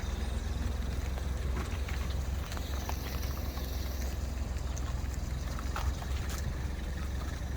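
Engine running with a steady low rumble under an even hiss, with a few faint clicks.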